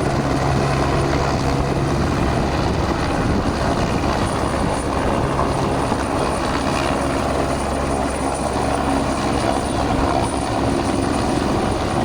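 Helicopter flying, a steady drone of engine and rotor.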